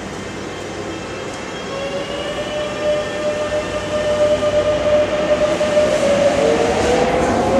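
Electric metro train pulling out of an underground station. The traction motors' whine rises steadily in pitch as it accelerates, and a second rising whine joins near the end over a growing rumble of wheels.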